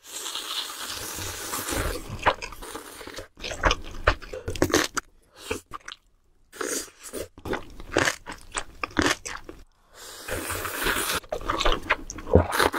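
Close-miked eating: spicy ramen noodles slurped up, and kimchi crunched and chewed, in irregular wet bites with short pauses.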